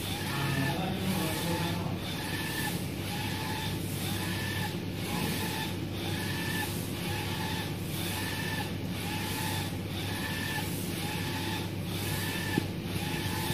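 UV flatbed printer printing: the print-head carriage shuttles back and forth along its rail, its drive whining on each pass, a little more than once a second, over the machine's steady hum.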